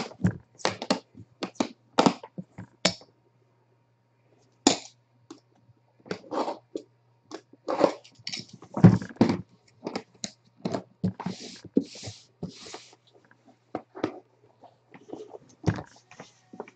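Irregular clicks, short rips and rustles of tape being pulled off a card briefcase and the case and card packaging being handled, over a faint steady low hum.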